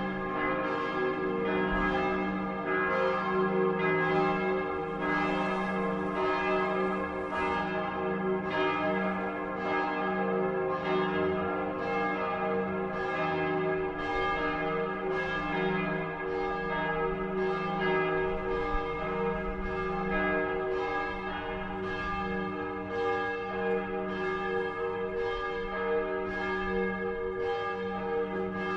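Several church bells ringing together in a continuous peal, new strokes roughly once a second over a dense, sustained hum of overlapping tones.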